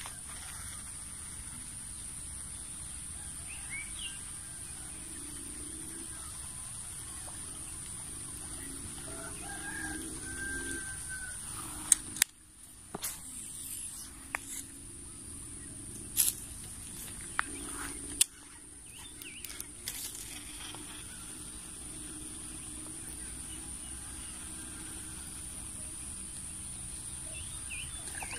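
Faint rooster crowing and chicken clucking over a steady high-pitched tone. Several sharp clicks and knocks from close by are the loudest sounds, about halfway through.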